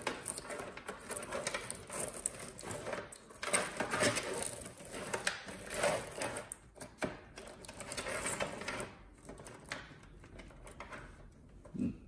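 A bundle of power-supply cables being crammed by hand into a computer case: rustling and scraping of the sleeved cables with irregular clicks and knocks of plastic connectors against the case. It quietens over the last few seconds.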